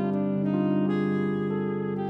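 Background music: saxophone over piano and keyboards, with sustained notes that change every half second or so.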